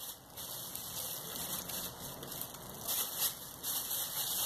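Plastic bag rustling and crinkling as a piece of modelling clay is taken out of it.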